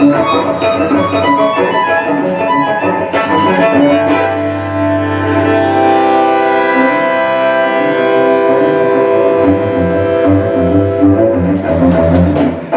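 Cello and bandoneon duo playing new tango live. Quick figures at first, then a long held chord for several seconds, then a low, rhythmic pulse comes back near the end.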